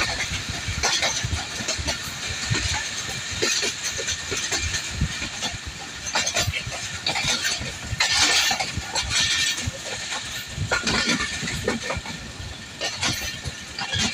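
Passenger train running on the track: wheels on the rails with a steady rushing noise and irregular clanks and rattles, a cluster of louder knocks about eight seconds in.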